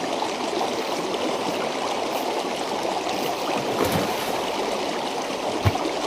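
Steady rushing of flowing water, with two brief low thumps, the sharper one near the end.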